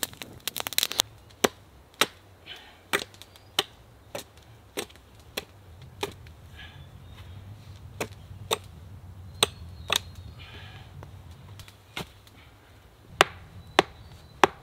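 Campfire crackling for about the first second, then a hatchet striking wood: a series of sharp, irregular chops, some coming in quick pairs, with short pauses between groups.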